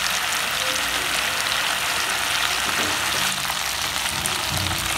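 Butter simmering in a pan into ghee, sizzling and bubbling steadily as the ghee separates from the milk solids.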